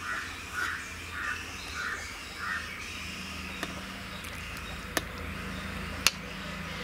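A crow cawing five times in a row, the caws a little over half a second apart. Later two sharp clicks come about a second apart, the second the loudest sound.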